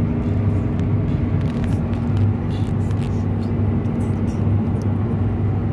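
Steady road and engine noise inside a Jeep's cabin cruising at highway speed: a constant low hum with scattered light clicks and rattles.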